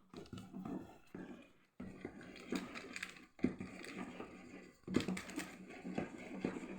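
Electric kitchen mixer running with a steady low hum as it beats cake batter, with a few light clicks and knocks of utensils against the bowl.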